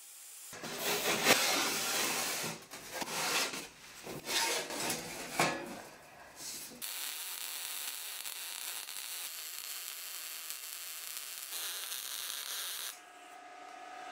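Sheet-steel pan being handled and worked, with irregular scrapes and knocks for several seconds. Then about six seconds of steady rasping from an angle grinder with a flap disc dressing the welds, ending in a short whine.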